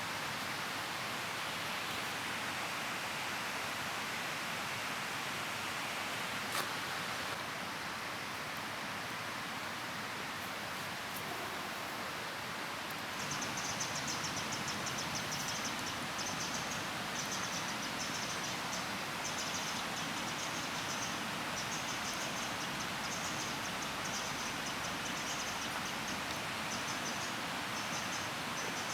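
Steady outdoor hiss, with insects chirping in quick, rapid pulses from about halfway through. A single sharp click about a third of the way in.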